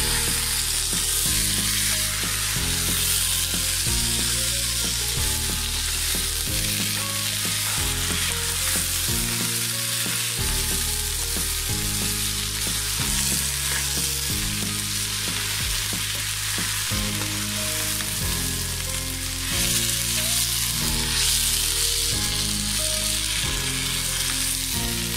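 Rice frying in hot oil and hilsa broth in a pot, sizzling steadily while a spatula stirs and turns it.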